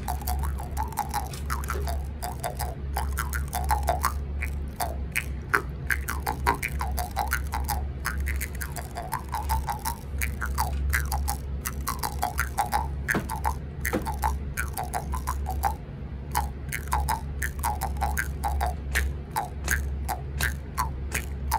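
Homemade plastic jaw harp cut from a gift card, plucked in a quick steady rhythm: a low buzzing drone with twangy overtones that glide up and down in pitch as the mouth shapes them.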